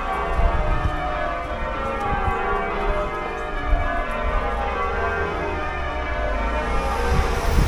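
Cathedral bells of York Minster ringing, many bells overlapping in one continuous peal.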